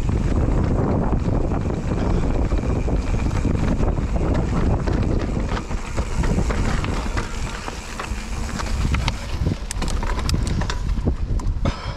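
Wind rushing over the camera microphone and a mountain bike's tyres rolling over dirt and loose stones on a descent, with sharp clicks and rattles from the bike near the end.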